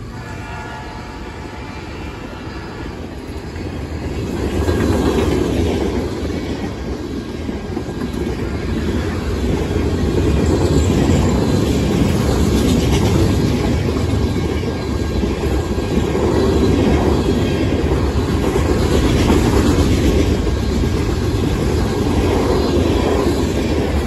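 Mixed freight train's cars rolling past at speed close by: a steady heavy rumble with wheels clacking over the rail joints, growing louder a few seconds in. The tail of the locomotive horn fades out in the first second.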